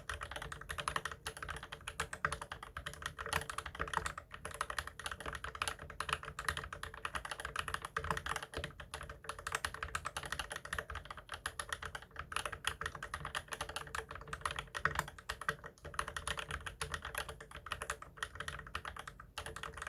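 Continuous fast typing on a mechanical keyboard with Drop Holy Panda tactile switches on 60 g TX springs, lubed with 205g0, and GMK keycaps: a dense, uneven run of key strikes.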